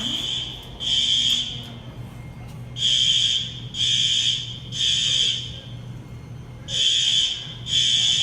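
Hotel fire alarm sounding its evacuation pattern: loud, high-pitched beeps of about half a second each in groups of three, with a pause of about a second between groups.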